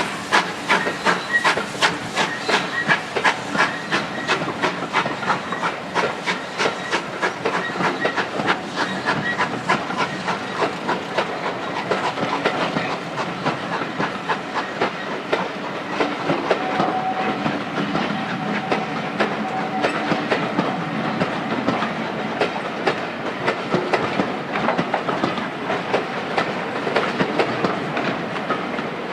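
GWR 5101-class 'Large Prairie' 2-6-2T steam locomotive No. 5164 pulling away with a nine-coach train, its exhaust beating about three times a second. The beats later blur into a steadier rush as the coaches roll by, clicking over the rail joints. Midway a steady high tone sounds for about three seconds.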